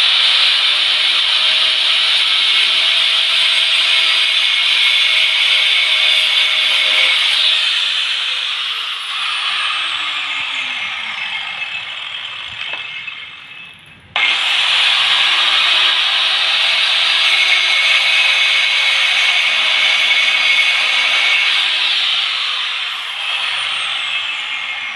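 Handheld angle grinder cutting a quartz countertop slab. It cuts steadily, is switched off about seven seconds in and winds down with a falling whine, then starts again suddenly about fourteen seconds in and winds down again near the end.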